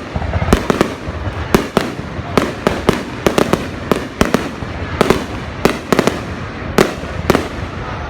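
Aerial fireworks display: shells bursting in rapid, irregular succession, several sharp bangs a second over a continuous low rumble.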